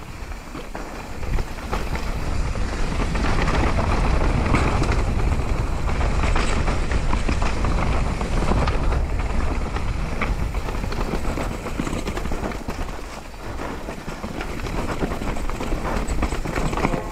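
Downhill mountain bike racing down a rough trail: tyres over dirt and rock with a constant clatter of chain and frame, and a low rumble of wind on the microphone. It eases briefly near the three-quarter mark, then picks up again.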